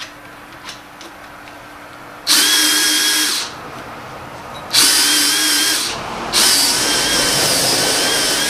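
DeWalt cordless drill turning the shaft of a pipe beading tool, rolling a bead into stainless steel tube. The drill whines in three runs starting about two seconds in, with short pauses between them, and the last run keeps going.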